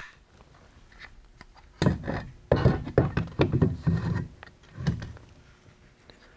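Metal handling noise of a Honda CBR600RR four-cylinder engine's cylinder block being lifted and set onto the engine's lower case: a cluster of clunks and scraping about two to five seconds in.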